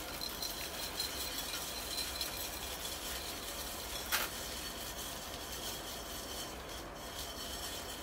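Coarse granular bonsai soil trickling from a metal soil scoop into a ceramic bonsai pot as a base layer, a steady gritty trickle of grains with one sharper click about four seconds in.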